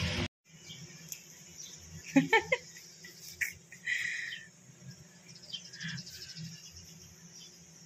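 Background music cuts off just after the start, leaving a steady high insect trill in the background, a quick run of three or four sharp clicks a little over two seconds in, and a short chirp near four seconds.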